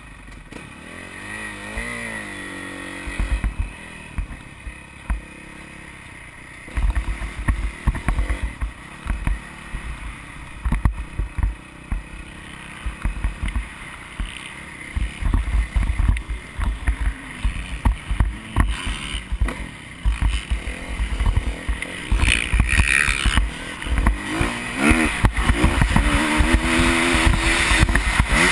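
Motocross dirt bike engine running at low speed, blipped up in pitch a few times, with wind buffeting the helmet-mounted microphone. It gets louder and revs harder over the last few seconds as the bike picks up speed.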